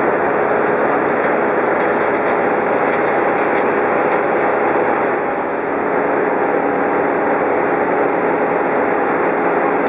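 An engine running steadily at an even speed, with a constant hum of machinery noise.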